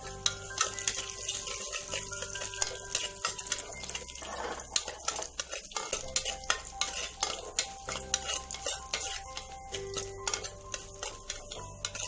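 Dried red chillies and curry leaves sizzling in hot coconut oil as a metal spoon stirs them around the pot, with many sharp clicks and scrapes of the spoon against the pot.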